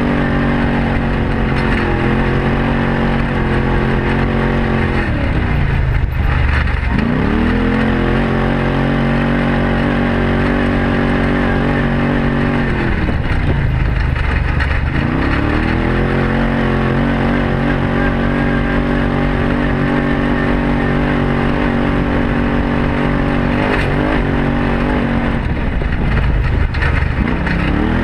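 Arctic Cat Wildcat side-by-side's engine running steadily on a dirt trail, heard from inside the cab. Three times the engine note falls away and then climbs back up.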